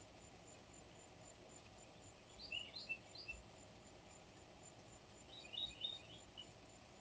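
Birds chirping faintly in two short bursts of quick high chirps, about two seconds and five seconds in, over the steady hiss of a surveillance camera's microphone.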